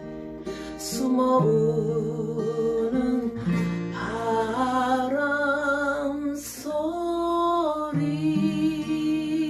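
Acoustic guitar strummed in a slow ballad accompaniment, with a held melody that rises in steps through the middle.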